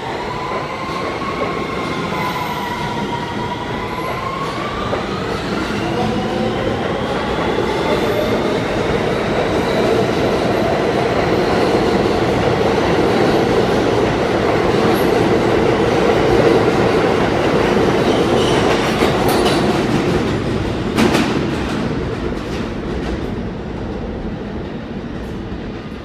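Siemens-propelled R160B subway train pulling out and accelerating: its propulsion whine climbs in pitch in several tones over the first few seconds. The whine gives way to the rumble of wheels on rail, which builds to a peak past the middle, has one sharp knock late on, and fades as the train leaves.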